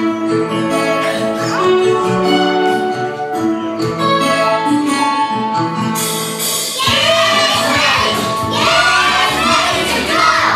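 Music starts abruptly with an instrumental introduction of held notes, and singing comes in about seven seconds in.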